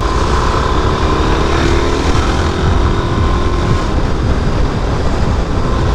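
Suzuki DRZ400SM single-cylinder engine running steadily at cruising speed, mixed with steady wind rush on the microphone.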